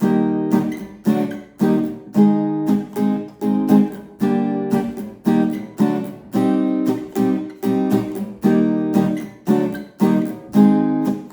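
Acoustic guitar strumming chords in a steady rhythm, about two strums a second, each chord ringing between strokes: the opening of the song's intro, a C minor progression with E-flat and D–E-flat chord moves.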